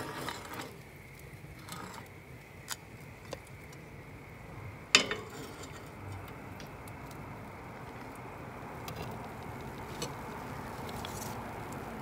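Cast-iron pie iron knocking against a steel campfire grill grate: a few light metal clicks and one sharp clank about five seconds in, over a low steady background of the fire.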